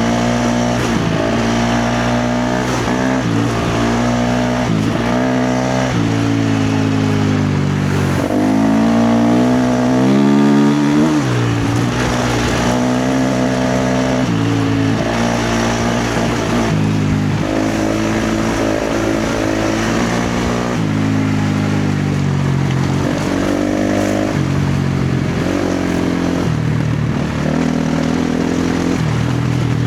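KTM 350 XC-F's single-cylinder four-stroke engine under hard throttle, its pitch climbing and then dropping sharply over and over. The longest and loudest climb comes about eight to eleven seconds in.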